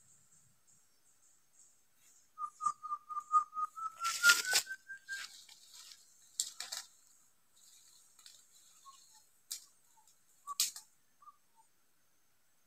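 A forest bird calls a quick series of about a dozen short whistled notes that rise slowly in pitch over some three seconds. Footsteps rustle and snap through leaf litter and undergrowth, loudest in a burst of crackling in the middle and then in a few separate snaps.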